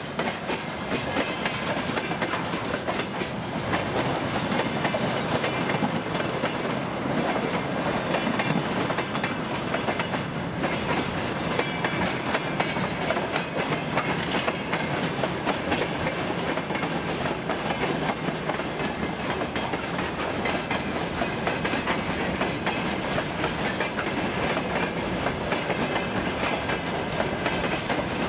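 Freight wagons of a passing train (container flatcars, a boxcar and gondolas) rolling by close up: a steady rumble with a continuous, rapid clatter of wheels on the rails.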